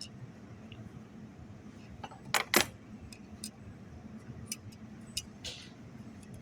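Small metal parts clinking and clicking as they are handled, with two loud knocks close together about two and a half seconds in, then scattered lighter clicks.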